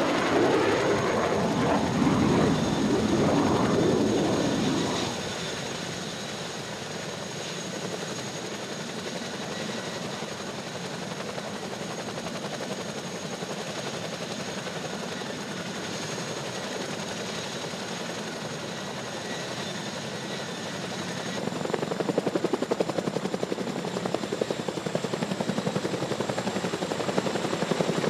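CH-47 Chinook tandem-rotor helicopter running with its rotors turning, a steady engine whine over the rotor noise. After about five seconds it drops to a duller, steadier drone, heard from inside the cabin, and from about twenty-one seconds a louder pulsing rotor beat returns as the helicopter lifts into a hover.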